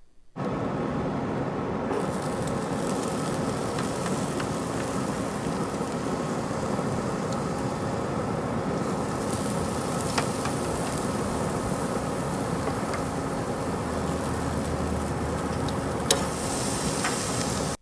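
A Traeger Ranger pellet grill running with a steady hum and hiss, and a few light clicks of metal tongs on the grate.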